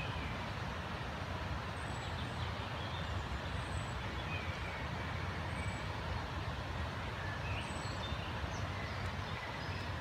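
European robin singing faintly: short, high, thin notes and quick warbled phrases every second or two, over a steady low rumble.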